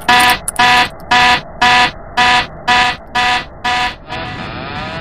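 Cockpit warning alarm sounding: eight loud, evenly spaced electronic beeps, about two a second, set off by a button being pressed on the control panel. About four seconds in, the beeping stops and a steady aircraft engine sound with a repeating rising whine takes over.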